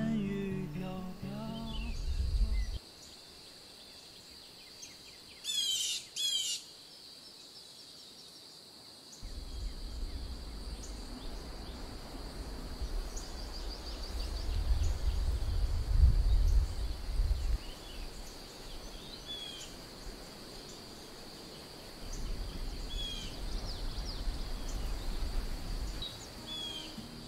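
Wild birds calling in woodland: scattered short chirps throughout, with a loud burst of rapid chirping about six seconds in, over a steady high hum. A low rumble comes and goes in the middle and near the end.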